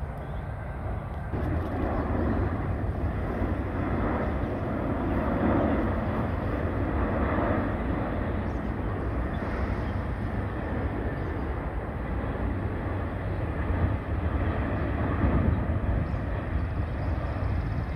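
Jet engines of a Delta Airbus A350 airliner on landing approach with its gear down. It passes overhead as a steady, low rumble that swells a little over a second in and holds.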